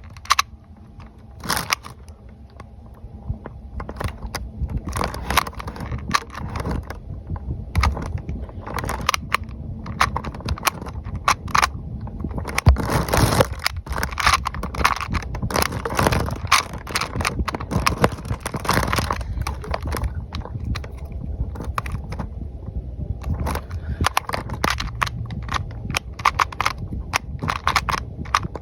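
Rubik's Clock puzzle being solved by hand: a long run of rapid, irregular clicks from its dials being turned and its pins being pushed, busiest about halfway through.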